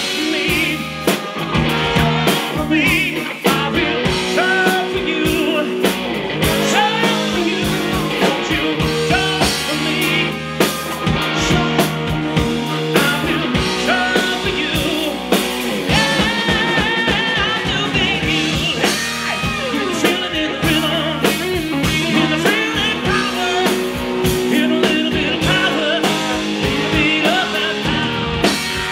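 A live band playing an upbeat rock number: drum kit, electric guitar and electric bass, with saxophone and trumpet and a singing voice.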